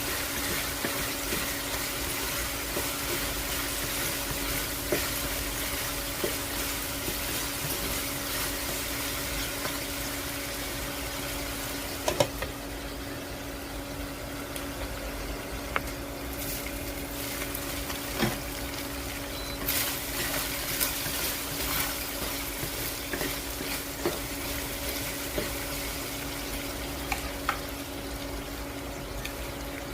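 Food sizzling in a pan, with scattered clinks and knocks of a cooking utensil over a steady hum. The sizzle quietens about twelve seconds in.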